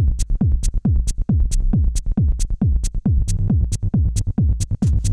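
Techno played live on two Novation Circuit grooveboxes: a steady four-on-the-floor kick drum, each hit dropping in pitch, at a little over two beats a second, with hi-hats ticking between the kicks. Extra hi-hat hits come in near the end.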